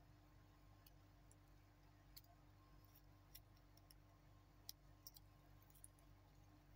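A titanium watch bracelet handled in the hands, its links and clasp giving a scattering of small, faint metallic clicks over a steady low hum.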